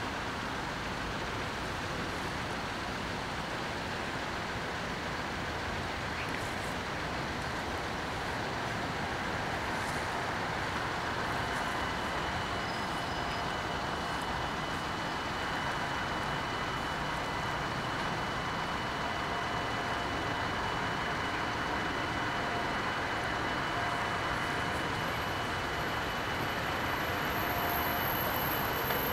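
Steady rumble of road traffic and an approaching electric train at a closed level crossing, with faint steady high tones joining after about ten seconds. The level rises a little toward the end as the train draws nearer.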